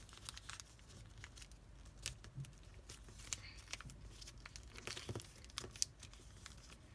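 Origami paper being folded and creased by hand: faint, scattered crinkles and clicks of the sheet.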